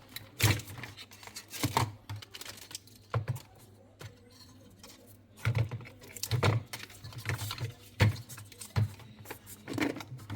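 Irregular light clicks and knocks of refrigerator parts being handled during work on the fan motor, over a faint steady low hum.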